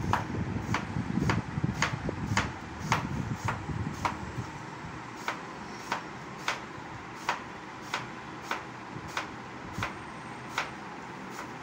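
Kitchen knife chopping apple on a wooden cutting board: a steady series of sharp knocks, about two a second, slowing slightly towards the end.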